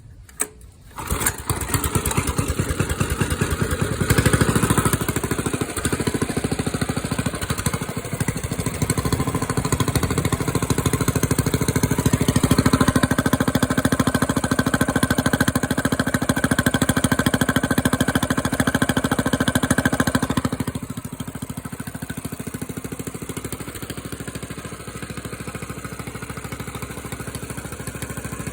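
Engine starting about a second in and running on its original, smaller exhaust pipe: it runs faster for most of the time, then settles to a quieter idle about 21 seconds in.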